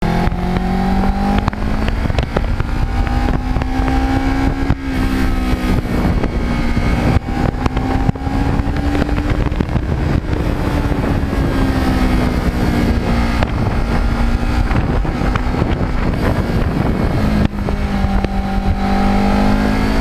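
Kawasaki Ninja 650R's parallel-twin engine running under way, its pitch rising and falling gently with the throttle over a steady low rush of wind noise.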